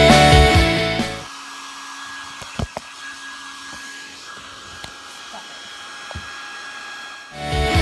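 A hand-held hair dryer running steadily at a distance, with a few short light knocks. Rock music plays for about the first second and cuts off.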